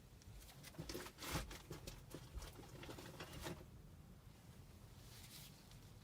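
Faint, scattered clicks and knocks of tools and metal parts being handled while working on a gas furnace's gas line and burners.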